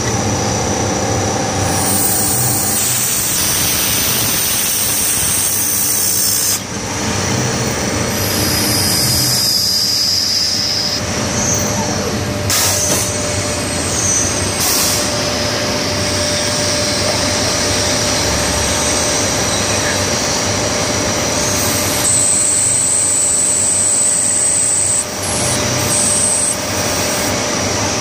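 CNC lathe running and turning metal: a loud, continuous machine noise with steady high whines, shifting several times as the tooling moves between cuts, with brief dips about six and a half seconds in and near the end.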